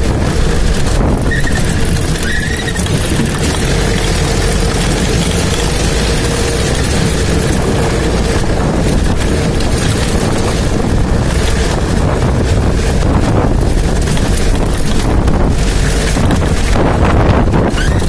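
Open army-style jeep driving steadily over a dirt track: engine and tyre noise mixed with wind buffeting the microphone.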